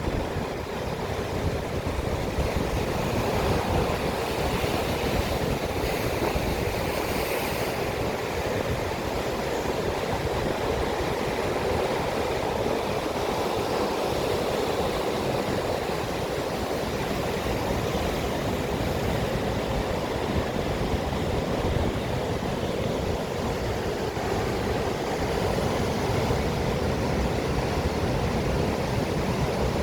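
Sea waves and surf making a steady, even wash of noise.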